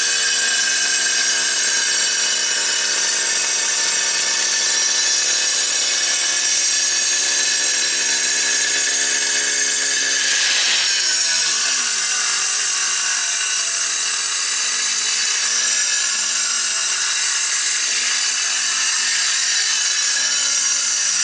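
Handheld angle grinder cutting through a limestone step cap: a loud, steady high whine with a gritty grinding rasp, the pitch wavering briefly about halfway through.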